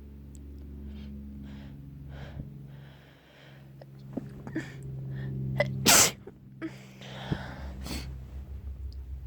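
A person sneezing: a series of breathy, hitching inhales builds up to one loud sneeze about six seconds in, and a smaller burst follows about two seconds later.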